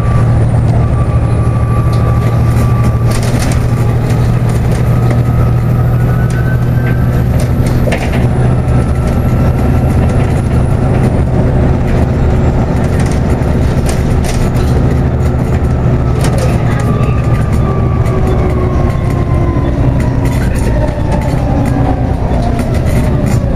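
Volvo B7TL double-decker bus heard from inside the passenger saloon: the six-cylinder diesel drones steadily under a transmission whine that rises in pitch, then falls away over the last few seconds as the bus slows for a stop. A few rattles and knocks from the bodywork.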